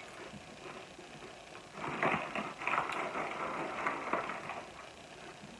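Goldfish cracker bag crinkling and rustling for about two and a half seconds as a hand reaches into it, starting about two seconds in. Before that there is faint crunching of crackers being chewed.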